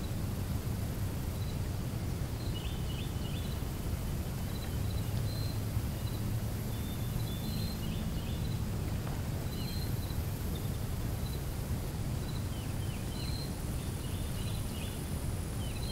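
Countryside ambience: small birds chirping on and off, in short high calls, over a steady low rumble.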